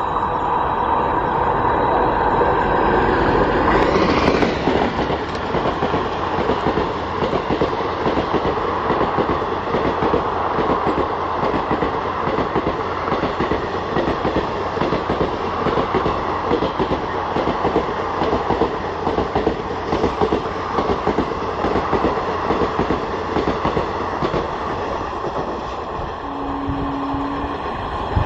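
WAP-4 electric locomotive and its express coaches passing at speed: a continuous rumble of wheels with rapid clickety-clack over the rail joints, loudest about four seconds in as the locomotive goes by. Near the end a short steady tone sounds for about a second.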